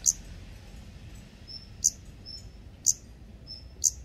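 Daurian redstart nestlings calling from a nest under clay roof tiles: four sharp, high, short calls about a second apart, each led by a faint thin whistle.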